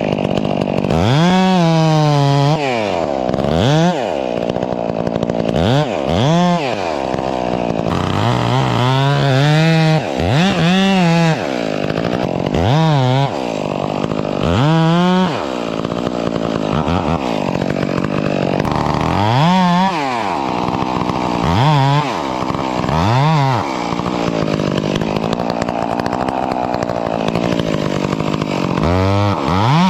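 Large two-stroke Stihl MS 661 chainsaw cutting into a cedar trunk. The throttle is opened and eased off about a dozen times, so the engine pitch sweeps up and down, with stretches of steady full-throttle cutting in between.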